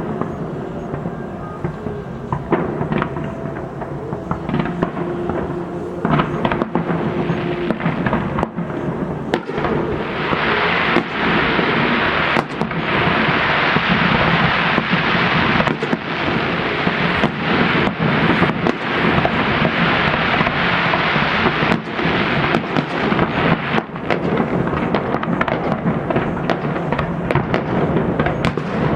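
Fireworks salute going off: a continuous run of booming and cracking bursts, many overlapping. From about ten seconds in to about twenty-two seconds a dense hiss joins them.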